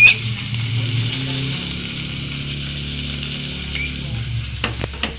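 Steak sizzling in a frying pan, a steady crackling hiss. A sharp knock comes right at the start, and a few quick clicks come shortly before the end.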